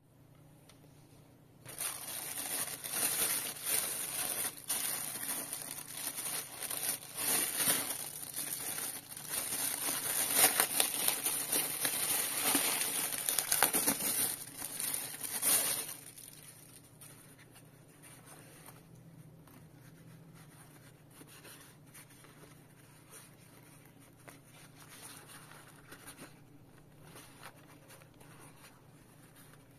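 Clear plastic polybag crinkling and tearing as hands pull it open, starting about two seconds in and stopping abruptly about sixteen seconds in. Faint rustles and ticks of the fabric waist bag being handled follow.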